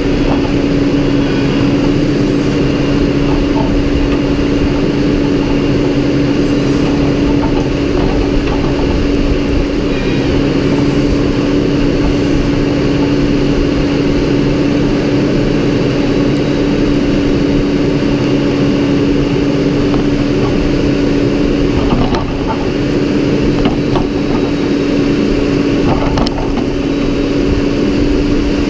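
Farm tractor's diesel engine running steadily at a constant speed, a loud, even drone, with a few faint knocks near the end.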